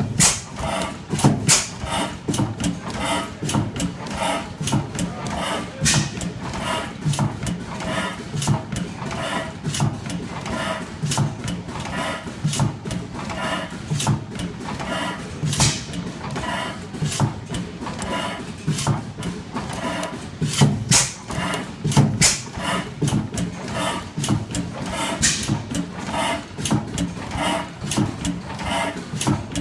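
Industrial Iron Works stationary engine running: an even rhythm of mechanical clacks from its valve gear and crank, with louder sharp strokes every few seconds.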